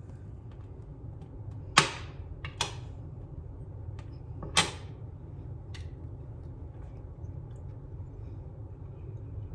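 A large metal spoon clinking against an enamel mixing bowl and the glass stovetop: three sharp clinks with a short ring, the loudest about two seconds in, and a few lighter ticks. A low steady hum runs underneath.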